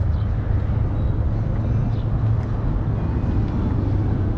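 Steady low rumble of background ambience, with a few faint short high tones above it.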